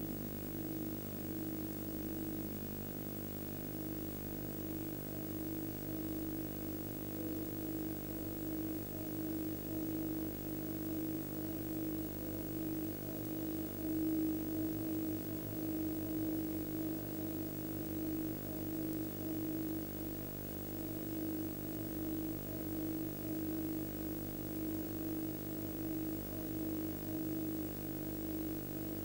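Steady low drone of several held tones layered together, one mid-low tone pulsing gently, swelling slightly about halfway through.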